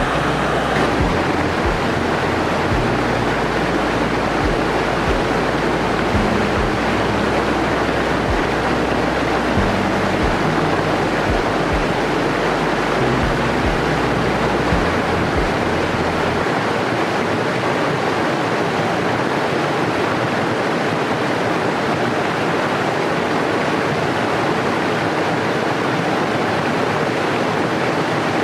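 Waterfall rushing over rocks: a steady, loud roar of falling water. A low rumble with knocks, like wind on the microphone, runs under it and stops partway through.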